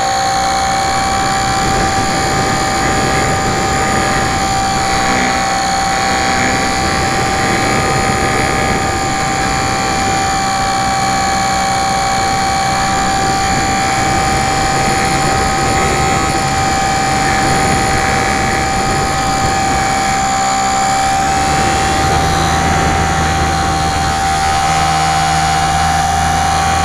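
Super Cub LP model airplane's electric motor and propeller running steadily in flight, heard from the plane's onboard camera: a steady high whine over a constant rush of noise, with the lower hum growing stronger about three quarters of the way through.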